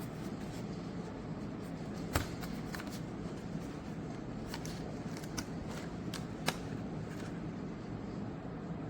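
A few scattered light clicks and rustles over a steady low hum, the sharpest about two seconds in and again about six and a half seconds in.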